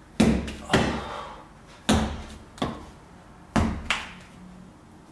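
A block of stiff potter's clay slammed down by hand onto a concrete floor to knead and soften it: six heavy thuds, coming in pairs.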